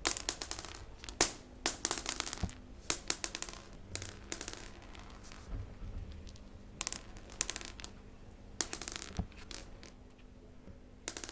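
Recorded sound effect of small beads falling and scattering on a hard surface, meant to pass for pills spilling onto a floor: irregular clusters of sharp clicks and rattles, some loud and some faint, over a faint steady hum.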